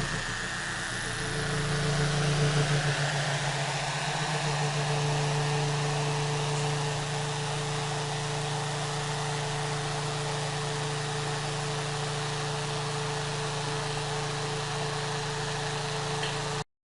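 A small motor running steadily, a hum over a whirring hiss. Its pitch wavers and dips in the first few seconds, then holds steady until it cuts off suddenly near the end.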